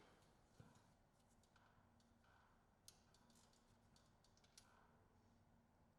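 Near silence: faint room tone with a few soft, sharp clicks.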